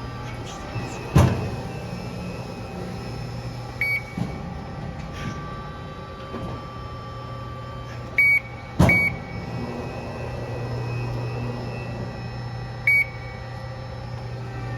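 Amada RG-80 hydraulic CNC press brake running, its pump and motor giving a steady hum. A few short beeps sound, and there are two sharp clunks: one about a second in and another about halfway through.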